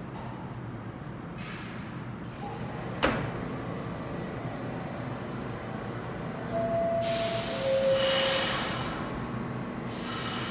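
R46 subway car's door chime sounds two descending tones, and the sliding doors close with a rush of noise about seven seconds in, over the standing train's steady hum. A single sharp click comes about three seconds in.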